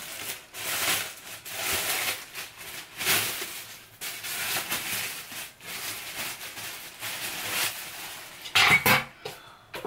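A parcel being unboxed: packaging rustling and scraping as a perfume display stand is taken out and handled, with hard clinks and knocks and a louder clatter near the end.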